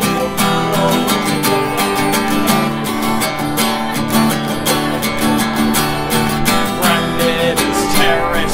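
Acoustic guitar strummed in a steady, driving rhythm during an instrumental passage of a folk-rock song. A man's singing voice comes in near the end.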